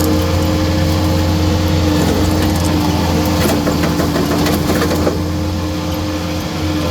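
Skid steer engine running steadily, driving a saw attachment through thick small trees, with a spell of snapping and crackling from about two and a half to five seconds in.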